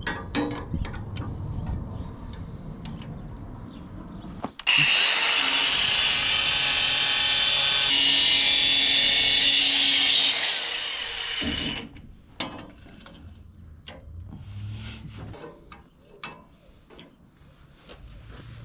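An angle grinder on a steel plate. It starts suddenly about four and a half seconds in, runs loud with a harsh high hiss for about six seconds, then winds down. Clicks and knocks of the plate and clamp being handled come before and after it.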